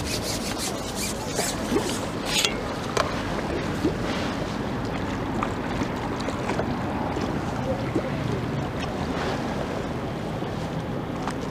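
Steady wind noise rushing over the microphone, with a few faint clicks in the first couple of seconds.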